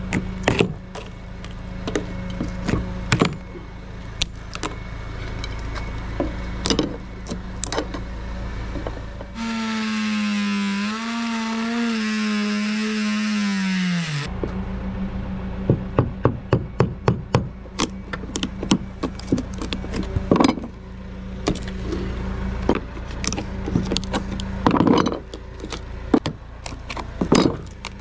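A cordless drill-driver runs for about five seconds in the middle, its pitch wavering under load as it backs screws out of the wooden trim. Before and after it come scattered knocks and clicks, with a quick run of them, as the trim strips are worked loose by hand over a steady low hum.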